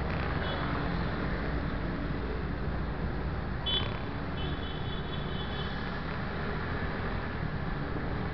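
An MBK Tryptik three-wheeled scooter's single-cylinder engine running steadily under way, with road and wind rumble and the traffic of other scooters around it. A thin high-pitched tone comes and goes twice.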